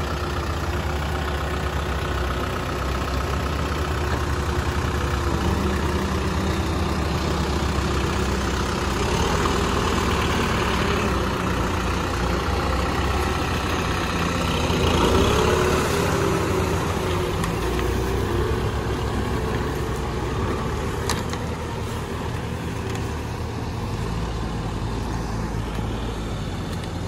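Kubota M6040SU tractor's four-cylinder diesel engine running steadily while the tractor works a rotary tiller through a flooded rice paddy. The sound fades slightly near the end as the tractor draws away.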